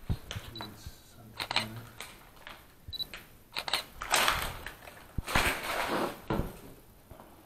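Irregular knocking, clicking and crunching of debris and plaster moulds being disturbed, with two brief high clinks. The longest, loudest scraping crunch comes about five to six seconds in, followed by a low thud.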